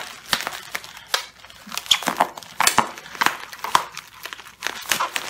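Large-bubble plastic bubble wrap crinkling and crackling in irregular bursts as it is folded down and pressed by hand.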